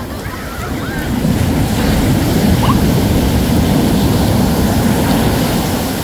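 Ocean surf: a wave's rush swells about a second in, stays loud through the middle and eases off near the end. Faint distant voices sit over it.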